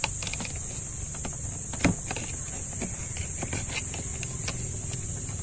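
Small clicks and taps of a plastic interior car door handle and its metal link rod being worked into the door panel, with one sharper click about two seconds in.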